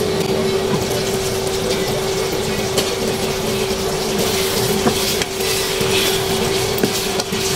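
Thick sauce bubbling around pork ribs in a nonstick pan, over a steady hum. Partway through the glass lid is lifted off, and a plastic spatula stirs and scrapes the pan with small clicks.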